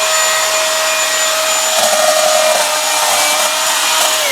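Milwaukee M18 battery chainsaw running flat out with a steady high motor whine, turning rough and dipping slightly in pitch about two seconds in as the chain bites into wood. The whine starts to fall away at the very end as the trigger is let go.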